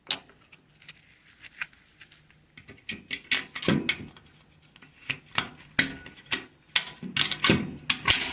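Irregular clicks and knocks of a push-to-release fire alarm manual call point being handled and reset after it has been pressed. The clicks are sparse at first and come thick and fast from about three seconds in.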